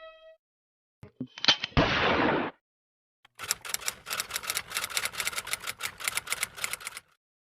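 Sound effect of a few clicks and a brief noisy burst, then rapid machine-gun fire, about nine shots a second for roughly three and a half seconds.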